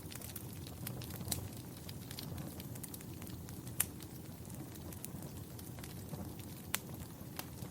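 Wood fire burning in a fireplace: a steady low rumble with scattered sharp crackles and pops, a few louder snaps standing out.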